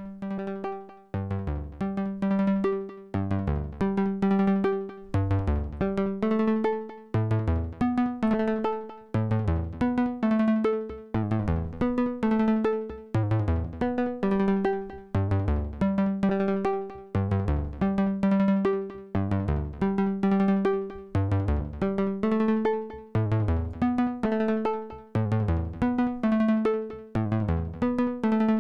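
A software modular synthesizer playing a repeating sequence of plucked, decaying notes, its pitch run through a heptatonic scale quantizer; some notes slide in pitch. With the sequencer's gate shortened, quantization is switched off for part of each note, so glide and off-scale pitches slip through and clash with the scale.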